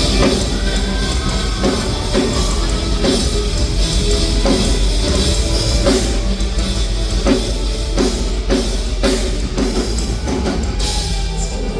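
Rock band playing an instrumental passage of a heavy rock song: pounding drum kit with cymbals and distorted electric guitars, no vocals.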